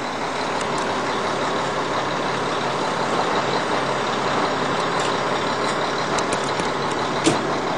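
A truck engine running steadily, with one sharp click near the end.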